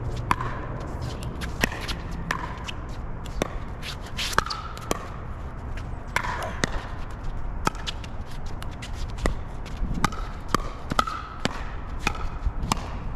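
Pickleball rally: repeated sharp pops of paddles hitting a plastic ball at irregular intervals, roughly one a second, some with a short ring after them. Shoes scuff on the court and wind rumbles on the microphone underneath.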